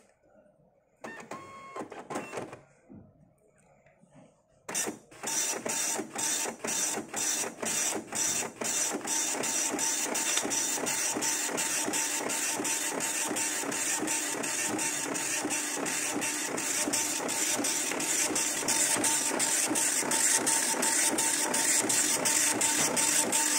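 TVS Electronics MSP 250/270 Star dot matrix printer starting up and printing. There is a short whirr about a second in. About five seconds in, the print head begins striking line by line, about two passes a second, and this runs into a continuous rattling buzz with a steady whine as the printed fanfold paper feeds out.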